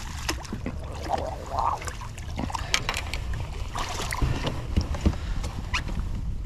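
Landing net scooping a lake trout out of the water beside a kayak: brief splashes and a run of sharp knocks and clatters as the net and fish come up onto the plastic hull, over a steady low wind rumble on the microphone.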